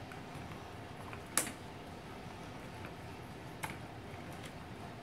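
Wooden clothespins clicking as they are clipped onto the wire rings of a wreath frame: a handful of light, irregular clicks, the sharpest about a second and a half in.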